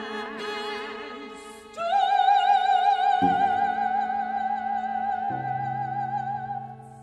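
Soprano singing with vibrato, accompanied by two cellos. Near 2 s she starts a long high note and holds it almost to the end, while the cellos change notes beneath her.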